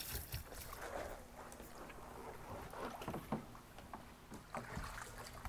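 Faint sloshing and splashing of water in a small plastic kiddie pool, with a few light knocks.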